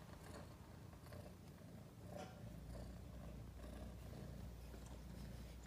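Domestic cat purring faintly.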